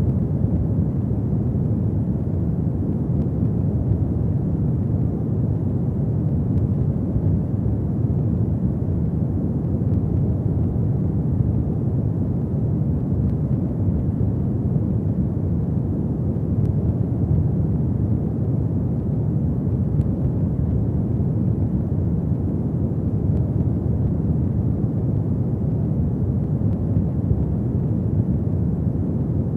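Fireplace fire burning: a steady, low, even noise, with only the odd faint crackle.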